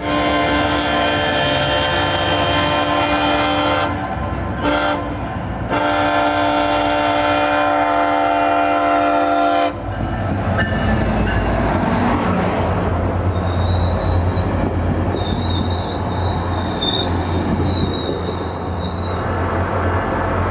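SunRail MotivePower MP32PH-Q diesel locomotive sounding its horn for a grade crossing: two long blasts with a short toot between them, ending about ten seconds in. The locomotive then rolls past with its diesel engine rumbling and the wheels clattering, and a high steel wheel squeal runs for several seconds near the end.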